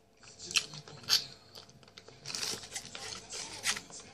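Close-miked eating of grilled chicken in lavash: biting and chewing, with two sharp crunches in the first second or so. Then a denser stretch of crackly crunching and crinkling begins about two seconds in.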